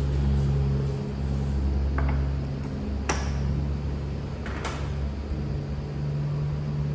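Steady low machine hum, with a few sharp clinks of a metal spoon against glass topping jars, the loudest about three seconds in.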